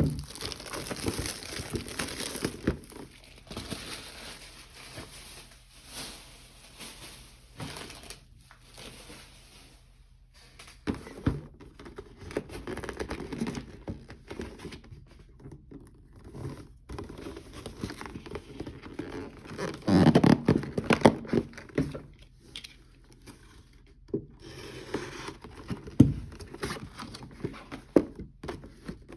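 Packaging of a mini-helmet box being opened by hand: irregular crinkling and tearing of wrapping with scattered small knocks, busiest about twenty seconds in.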